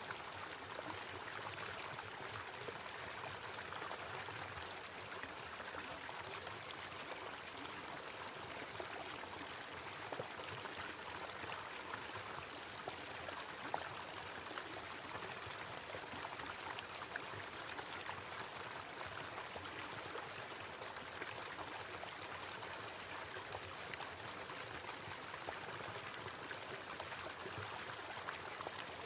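Small waterfall: a steady rush of falling, splashing water.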